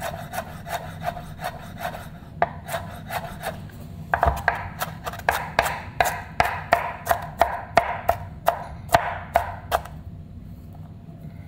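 Kitchen knife chopping on a cutting board, finely dicing pepper: quick strokes about three or four a second in runs with short pauses, stopping near the end.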